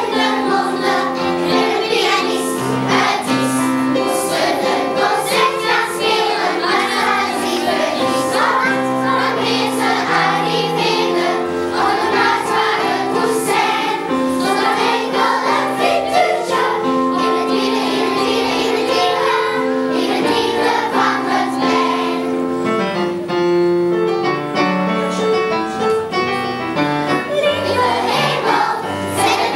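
A children's choir singing a song, accompanied by instruments.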